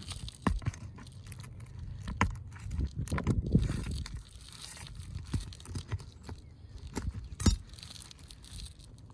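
Asphalt roof shingles being pried loose with a metal tool: scattered clinks and knocks with scraping and crackling as sealed tabs are broken free and nails worked out, rougher around three to four seconds in and with a sharp knock at about seven and a half seconds.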